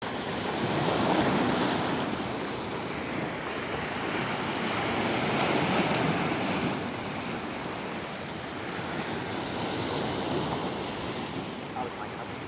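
Sea waves washing on the shore, swelling and easing every few seconds, with wind on the microphone.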